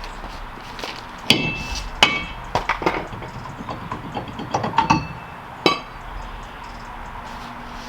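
Hammer striking metal: about six sharp blows that ring, spaced unevenly over about four and a half seconds.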